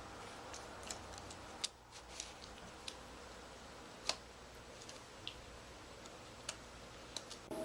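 A few faint, sharp clicks at irregular spacing, about seven in all, over a low steady background hiss.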